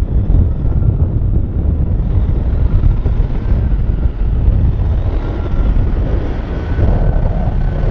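Diesel engine of a Ford L-series semi tractor running close by at low speed: a loud, steady, deep rumble.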